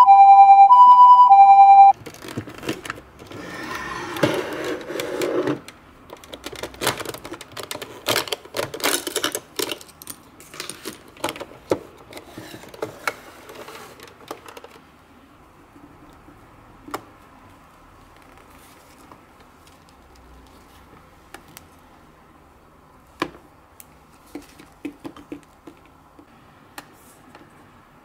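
Toy ambulance's electronic siren sounding loudly, two tones alternating each about half a second, cutting off about two seconds in. Then irregular plastic clicks and rattles as the toy ambulance is opened and its stretcher pulled out, thinning to a few faint clicks.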